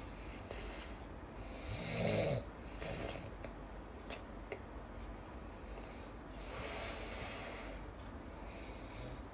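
A sleeping person snoring: a series of rasping breaths a few seconds apart, one with a rattling, pitched snore about two seconds in and a longer breathy one near the end.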